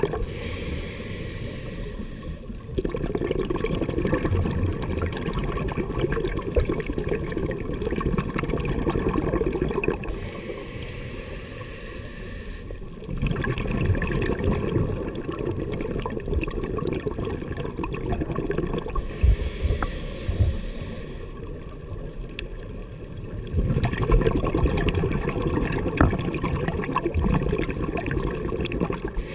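Scuba diver breathing underwater through a regulator: a short hissing inhale followed by a long rumble of exhaled bubbles, repeating about every ten seconds, three breaths in all.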